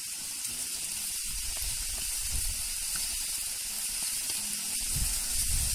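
Steady high background hiss, with a low rumble that swells twice, about two seconds in and again near the end.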